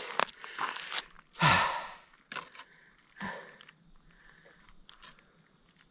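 A man's heavy sigh about one and a half seconds in, catching his breath after exertion, followed by a couple of short faint clicks.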